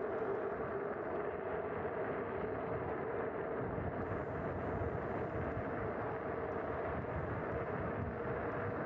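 Kugoo G Booster dual-motor electric scooter at full throttle: a steady motor whine that rises slightly in pitch as the scooter gains speed, over tyre and wind noise. Heavier wind buffeting on the microphone sets in about three and a half seconds in.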